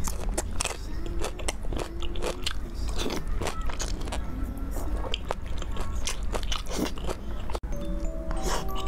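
Close-miked eating sounds: a person biting and chewing spicy braised pork in thick sauce, a dense run of wet clicks and crunches. Near the end, after a brief drop, light music with held notes comes in under the chewing.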